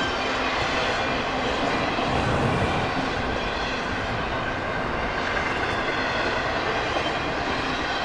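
Intermodal freight train cars loaded with truck trailers and containers rolling past at speed, a steady unbroken rumble and rush of wheels on rail.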